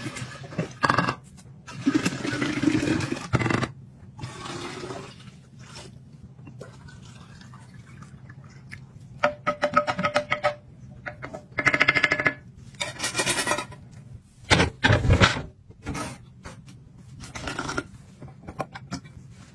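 Coffee poured from a bottle into a glass beverage dispenser jar. This is followed by a series of clinks, scrapes and taps from glass, lids and bottle caps being handled, some with a brief ringing.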